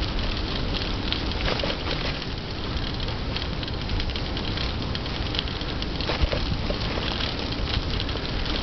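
Steady rush of wind on the microphone while moving along a paved path, with scattered small crackles and ticks throughout.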